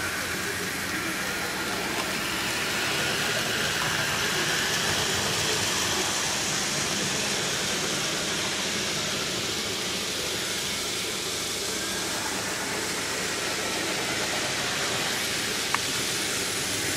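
HOn3 Blackstone model diesel locomotive running with a steady engine sound and hiss, and a single sharp click near the end.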